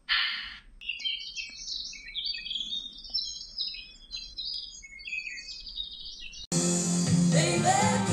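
A brief burst of hissing noise, then small birds chirping in short, scattered calls for about six seconds. Music cuts in abruptly near the end and is much louder.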